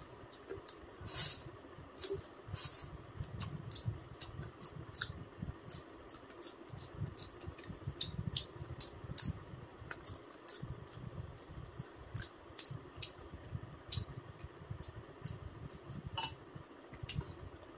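A person eating close to the microphone: wet chewing with irregular lip-smacking clicks, a few a second.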